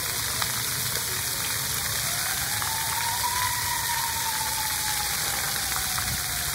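Splash pad fountain jets spraying, a steady hiss of water falling onto wet concrete. A faint tone rises and then slowly falls from about two seconds in.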